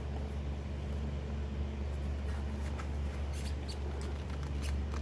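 Faint clicks and rustles of hands working a greased waterproof wiring connector, pushing it together, over a steady low hum.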